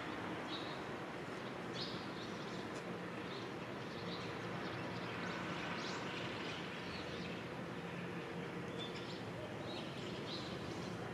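Small birds chirping in short, scattered calls over a steady outdoor background hum.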